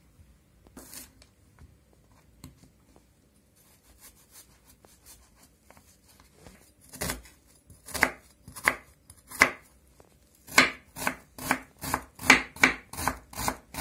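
A kitchen knife cutting a red onion on a wooden cutting board: faint slicing at first, then sharp knocks of the blade on the board, a few spaced apart, turning into quick, even chopping at about three strokes a second in the second half.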